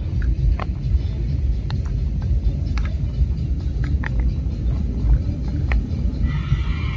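A steady low rumble throughout, with scattered light knocks and clicks of a wooden spatula against a small aluminium camping pot as noodles are stirred in it on a gas camp stove.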